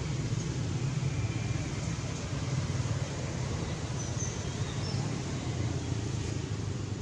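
Steady low rumble of background noise with no clear events, with a couple of faint short high chirps about four seconds in.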